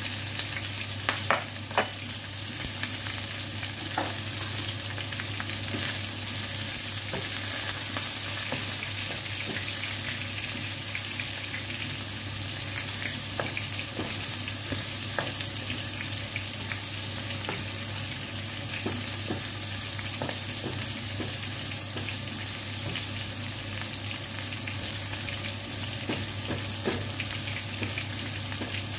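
Chicken pieces sizzling steadily in hot oil in a frying pan with garlic and ginger, stirred and scraped with a wooden spatula. A few sharp knocks of metal tongs against the pan come about a second or two in.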